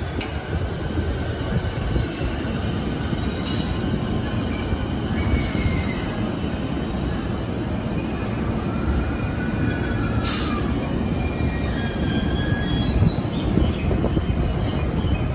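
209-series electric commuter train pulling out of the platform, rumbling over the rails with thin wheel squeal and whining tones that rise and fall. A few short sharp sounds cut in along the way.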